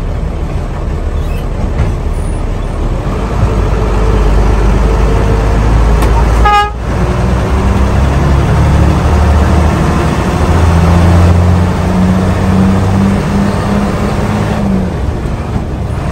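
An old bus's engine and loud exhaust, heard from the driver's cab, pulling hard as the bus accelerates, its note climbing in steps as it goes through the gears. About six and a half seconds in there is a short horn toot and the engine drops off briefly before climbing again, and it eases off near the end.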